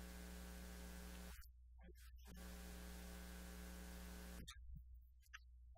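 Faint electrical mains hum with a steady buzz over it. The buzz cuts out about a second and a half in, comes back a second later, and cuts out again near the end.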